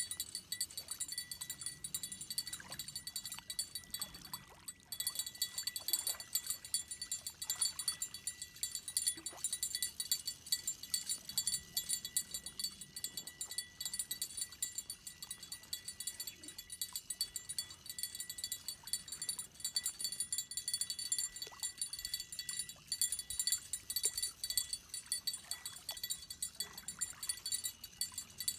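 Bell on a fishing rod jingling rapidly and without pause as a striped bass pulls on the line, with the reel's drag clicking as line is taken out.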